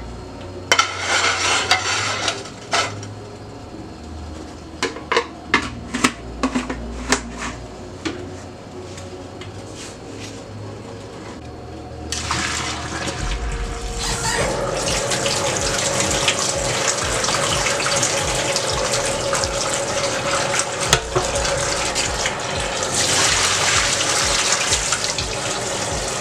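Scattered clinks and knocks of pots and pans. About halfway through, this gives way to a steady rush of water: the boiling water from a saucepan of saltfish is poured into a stainless steel sink, then the kitchen tap runs into the pan to refill it with fresh water and soak the rest of the salt out of the fish.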